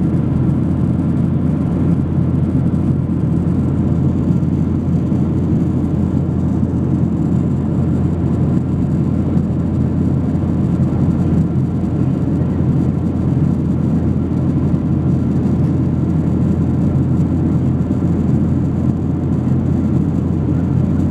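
Jet airliner's cabin noise at cruise: the engines and rushing airflow heard from inside the cabin as a steady, low, even rumble.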